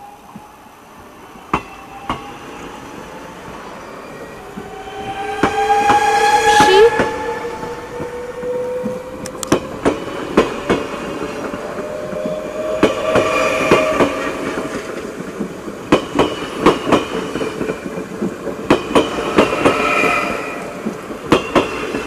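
NS VIRM double-deck electric train pulling away past the crossing. A whine rises slowly in pitch over the first seven seconds or so as it gathers speed, then the wheels clack in repeated groups over the rail joints as the carriages go by.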